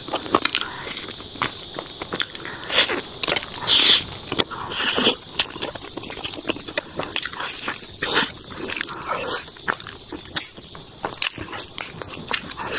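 Close-miked eating: biting into and chewing soft glutinous rice snacks, a multigrain rice ball studded with red beans, peanuts and raisins, with irregular mouth clicks and a few louder smacks.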